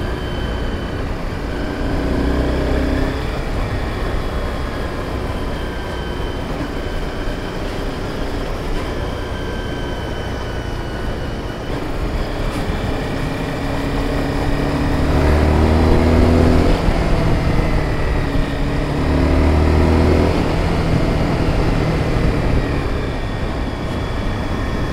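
Honda sport motorcycle riding down a winding mountain road: steady engine and wind noise, with the engine note swelling briefly three times.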